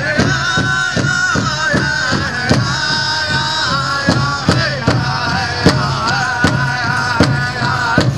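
Powwow big drum struck in a steady, even beat, about two to three strokes a second, with a group of singers' high-pitched voices held over it.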